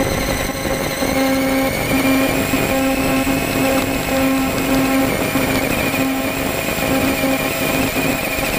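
Motor and drivetrain whine of the Tonka Summit RC truck driving over grass, heard through its onboard camera, with a steady hum that breaks off briefly several times over a rough rumble from the chassis and tyres.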